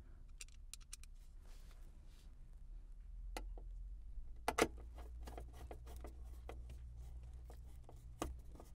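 Faint clicks and taps of a screwdriver and screws while the radio is screwed into its mounting in the dash, with a few sharper clicks about three and four and a half seconds in and near the end.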